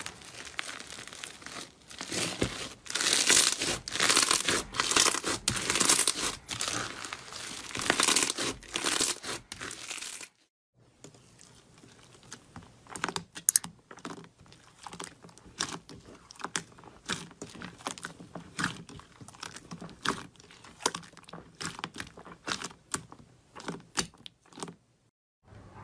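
Slime being squeezed and pressed by hand, with dense crackling and crunching for about ten seconds; after a short break, sparser separate clicks and pops as slime is handled.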